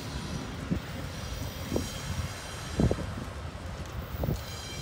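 Shore Line East push-pull commuter train running away down the track, a steady low rumble. Wind buffets the microphone in several short low thumps.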